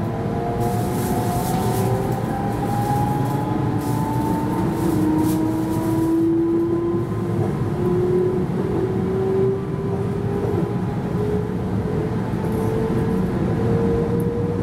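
Keihan 13000 series electric train heard from the front cab while running: the traction motors whine in a slowly rising pitch as the train picks up speed, over a steady rumble of wheels on the rails.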